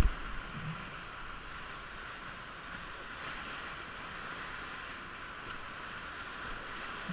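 Whitewater rushing around an inflatable raft running a river rapid: a steady, even rushing noise. A single sharp thump right at the start.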